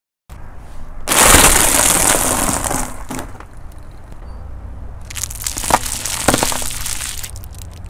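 Car tyre rolling over and crushing crunchy food: dry bagel rings crackle and break loudly about a second in, then wrapped hard candies crunch under the wheel with a few sharp snaps, over a steady low rumble of the car.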